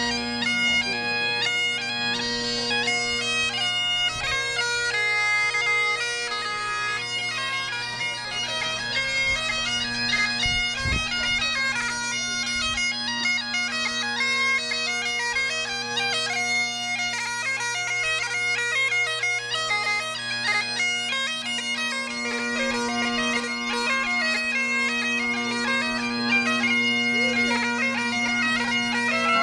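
Several bagpipes (binioù braz, Highland-style pipes) playing together on the march: a steady drone with the chanters' melody over it.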